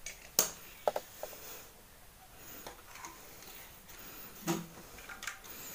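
A few light clicks and taps from handling a television circuit board and multimeter probes, over the low hush of a small room.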